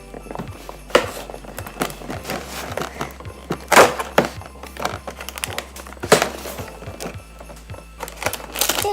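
Cardboard and plastic packaging of a Lego advent calendar crinkling and tearing as a door is opened, with irregular clicks and rustles and a few louder rips about four and six seconds in.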